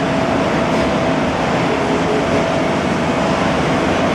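Steady hum and rush inside an Innovia APM 100 light-rail car standing at a station, with a thin steady whine running through it.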